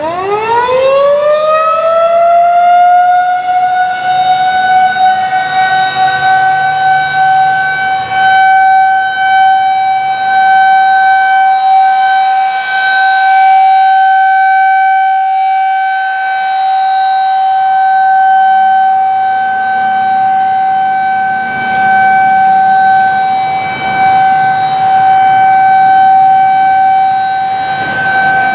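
Federal Signal 2001-SRN rotating electromechanical siren spinning up: its wail climbs steeply within about two seconds, then settles into one steady, loud tone. The tone swells and fades in loudness as the rotating horn sweeps past. It is sounding a scheduled test.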